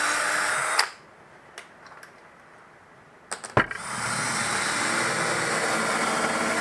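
Electric power tool motor running at a steady high speed in two runs: a short one that stops under a second in, then a knock or two and a longer steady run from about three and a half seconds in.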